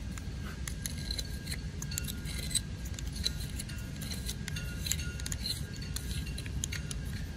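Plastic Swagelok tube scriber being twisted around a 3/8-inch stainless steel tube, making scattered small metallic clicks and scrapes as it marks the tube, over a low steady hum.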